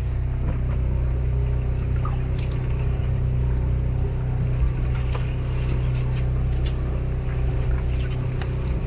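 Fishing boat's engine running with a steady low hum, with water splashing and a few light clicks over it.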